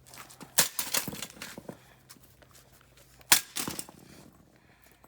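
Sledgehammer striking a bicycle frame twice, about three seconds apart, each blow a sharp crack followed by a brief spatter of smaller clatters; the second blow is the louder.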